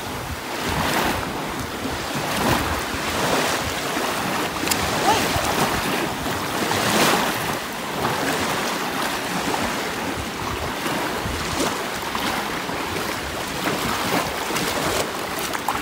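Waves washing up on a sandy beach, surging every second or two, with wind buffeting the microphone.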